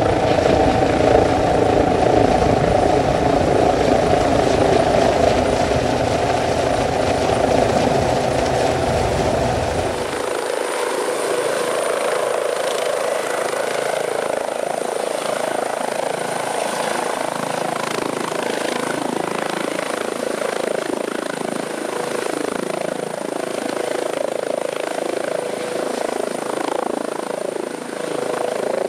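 Medical rescue helicopter flying low overhead, its rotor and turbine loud and close. About ten seconds in the sound changes abruptly to a more distant, steady turbine whine over rotor noise as the helicopter descends and settles to land.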